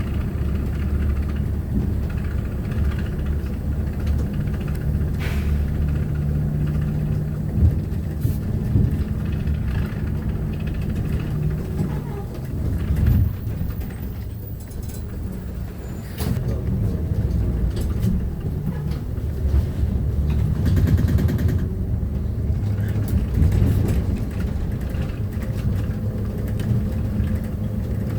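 Cabin sound of a 2017 Hyundai New Super Aerocity CNG city bus underway: a steady low engine rumble with road noise, rising and falling in pitch as the bus pulls away and slows, with occasional rattles and clicks.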